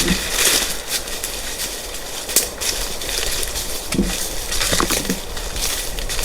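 Footsteps crunching through dry leaves and underbrush, with sharper snaps now and then.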